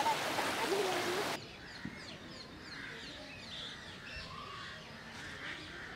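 Rushing floodwater of a swollen river, a steady hiss that cuts off abruptly about a second and a half in. It gives way to a quieter outdoor ambience with birds chirping and calling.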